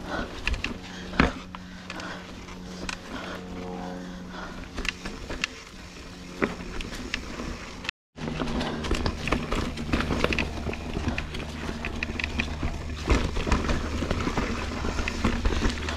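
Mountain bike rolling over a dirt and rocky singletrack trail: tyres crunching over the ground, with frequent knocks and rattles from the bike under a steady low hum. The sound drops out for a moment about halfway through.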